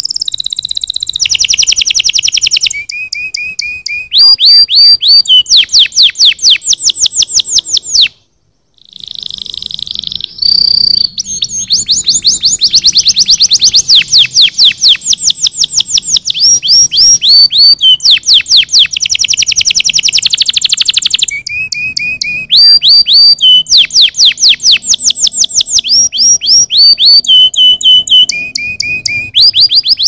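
Domestic canary singing: a loud, rolling song of rapid repeated notes delivered in runs, mostly fast downward-sweeping notes with some short runs of lower notes. The song breaks off for about a second roughly a quarter of the way in, then resumes.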